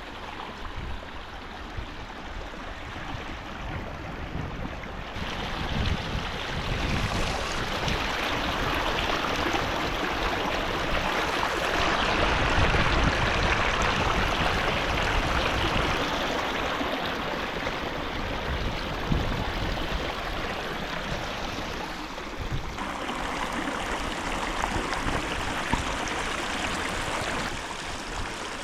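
River water rushing and gurgling over rocks as a steady noise. It gets louder about five seconds in and drops back down about five seconds before the end.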